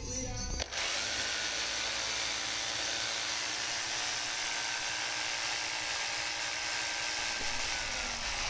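A handheld power tool's motor spins up about a second in, runs steadily with a high whine, and stops abruptly near the end.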